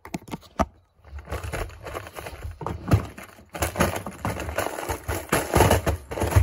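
Plastic tackle boxes clattering and rattling as they are handled and pushed into a boat's storage compartment: a few sharp clicks, then from about a second in a busy run of knocks and scraping.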